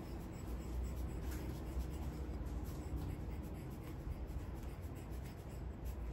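Soft puffs of air and light scratchy rubbing from a hand-squeezed rubber bulb air blower, its nozzle working wet alcohol ink across smooth paper, over a low steady hum.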